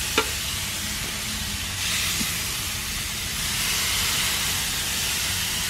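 Chicken breasts sizzling on the hot grates of a gas grill, a steady hiss, with a sharp click of metal tongs just after the start and a lighter one about two seconds in.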